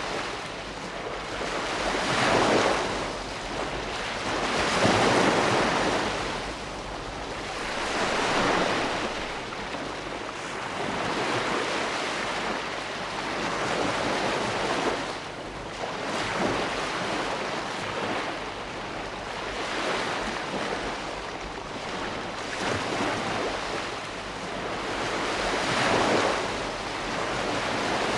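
Ocean waves breaking and washing onto a shore, a steady surf hiss that swells and ebbs every few seconds as each wave comes in.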